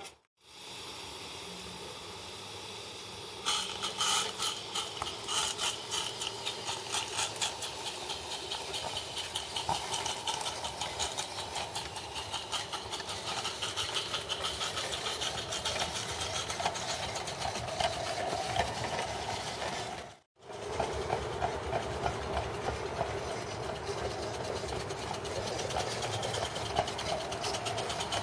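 Roundhouse Silver Lady 16mm-scale live steam locomotive hissing steam, then about three seconds in starting to chuff with quick, even exhaust beats as it gets its train under way. The sound drops out briefly about twenty seconds in, and the chuffing runs on after it.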